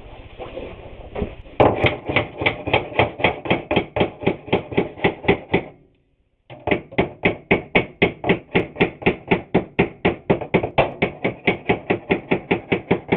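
A hammer striking a wooden board in fast, even blows, about five a second. There are two long runs with a short break a little before the middle.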